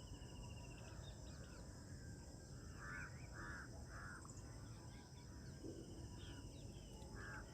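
Faint outdoor ambience: a bird gives several short caw-like calls, twice in quick pairs, over steady high insect chirring.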